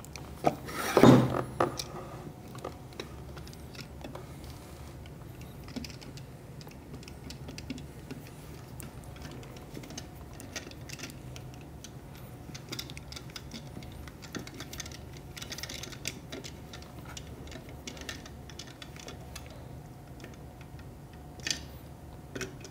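Small clicks and taps of a screwdriver turning a screw and handling of plastic parts as a chute is screwed onto the body of a DF83 coffee grinder, with one louder knock about a second in. A faint steady hum sits underneath.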